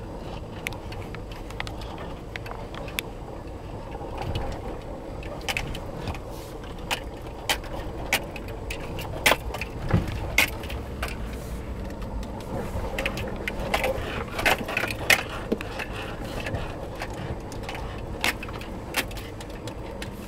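Inside the cab of a Nissan Titan pickup crawling along a rough, rocky dirt trail: a steady low rumble of engine and tyres, with frequent sharp knocks and rattles as the truck jolts over the bumps. The knocks come thickest and loudest about halfway through.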